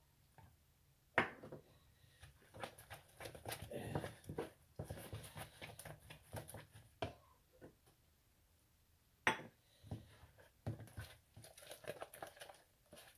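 A fork stirring pancake batter in a tub: quick, irregular scraping and tapping, with a sharp knock about a second in and another about nine seconds in, and a short lull between the two runs of stirring.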